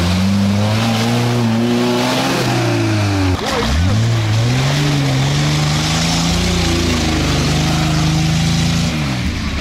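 Off-road 4x4's engine working under load and revving up. The revs drop sharply a little over three seconds in, then climb again and hold high before easing off near the end.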